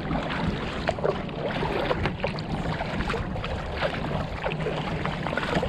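Water splashing and lapping around a kayak out on a lake, with wind buffeting the microphone as a steady low rumble.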